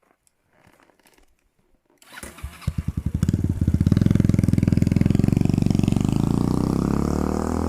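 Motorcycle engine starting about two seconds in: a brief crank, then it catches and settles into a steady idle, with the revs rising a little near the end.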